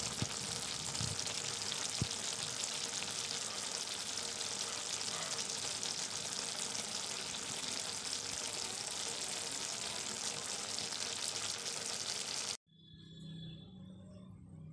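Mustard greens with tomatoes and chillies sizzling steadily in a wok, with a sharp tick or two early on. The sizzle cuts off suddenly near the end, leaving a much quieter background.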